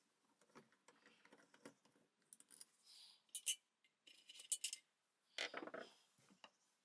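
Hands and a screwdriver working on the metal-bodied Black & Decker D520 drill: quiet, irregular small clicks, taps and scrapes, with a few sharper clicks in the middle and a longer scrape about five and a half seconds in.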